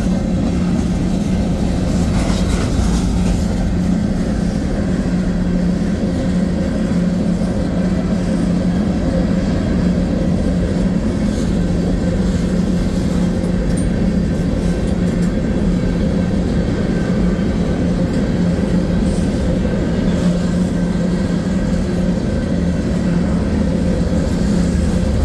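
A freight train of open-top gondola cars rolling steadily past: a continuous, even rumble of wheels on rail.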